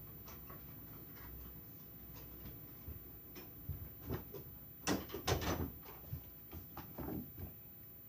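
Scattered light knocks and clicks of objects being handled in a room, with a louder clatter about five seconds in.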